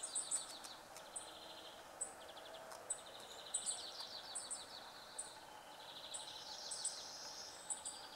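Chirping insects: trains of rapid high-pitched pulses lasting a second or so, with short, very high chirps repeating about once a second over them.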